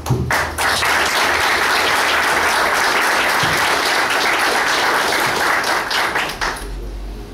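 A room of people applauding: a steady round of clapping that fades out about six and a half seconds in.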